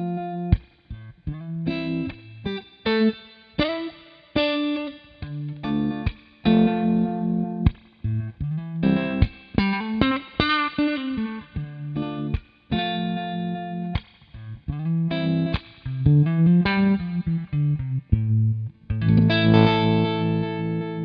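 Electric guitar played through a CopperSound Loma Prieta gritty harmonic tremolo pedal: distorted notes and chords chopped into a fast, pulsing rise and fall of volume, with one note bent up and back down about two thirds of the way through.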